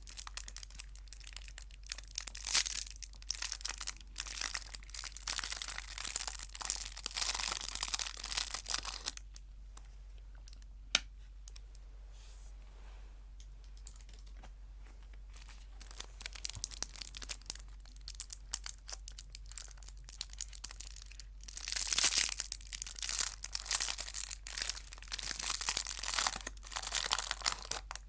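Chocolate wrapper being crinkled and torn close to the microphone, in two long spells of dense crackling with a quieter gap between them. A single sharp click comes about eleven seconds in.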